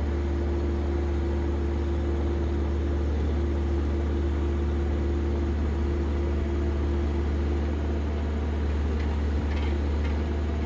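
An engine running steadily at a constant speed, giving a deep, unchanging drone with a faint whine held over it.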